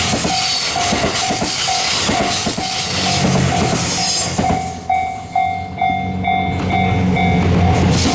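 Level-crossing warning bell ringing about twice a second while a Series 87 diesel train runs past with wheel and running noise. About five seconds in the rushing noise drops away and the rumble dips briefly, while the bell keeps ringing.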